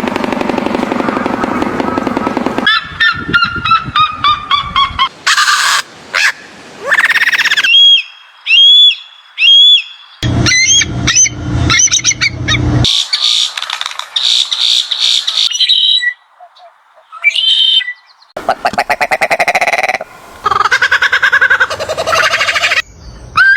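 A run of different wild animal calls cut one after another: repeated honking calls, gliding cries, and low buzzing and rasping calls, each lasting a second or a few before the next begins.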